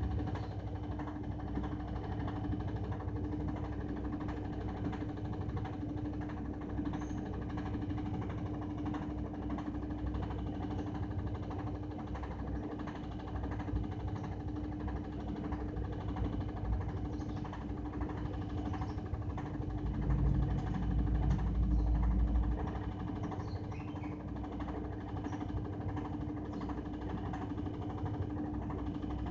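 Washing machine running with a steady hum and rough vibration. About twenty seconds in, a heavier low rumble swells for roughly two seconds.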